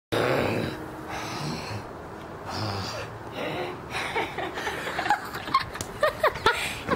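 People laughing hard, first mostly breath with little pitch, then short high-pitched laughs that glide up and down in the last two seconds.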